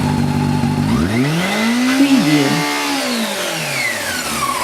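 Motorcycle engine idling, then revved once about a second in: the pitch climbs, peaks, and falls back toward idle over the next three seconds.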